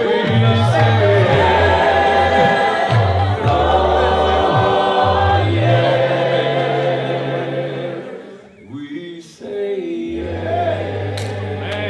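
Gospel worship music: a choir singing long held chords over a steady bass line. It drops away briefly about eight seconds in, then the held chords return.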